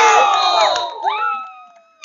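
Football spectators shouting and cheering, many voices at once, loud at first and dying away about a second and a half in.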